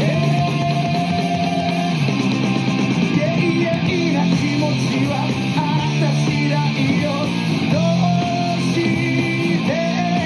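Background rock music with guitar and a sung or melodic line.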